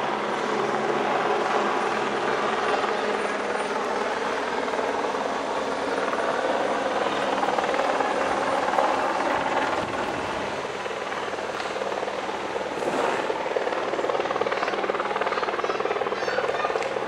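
Aérospatiale AS355N Twin Écureuil helicopter flying overhead, its main rotor and twin turbine engines making a steady, loud drone, a little quieter about two thirds of the way through.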